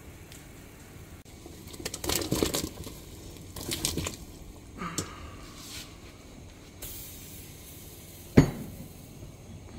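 A glass dish clinking and knocking against a stainless steel stockpot as potato wedges and carrots are tipped into the boiling broth, landing with soft splashes. The clinks come in a few scattered clusters, and one sharp knock near the end is the loudest.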